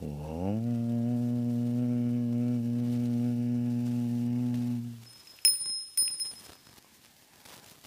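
A deep, long-held chanted "Om", sliding up into its pitch at the start and held for about five seconds, then two bright bell strikes about half a second apart.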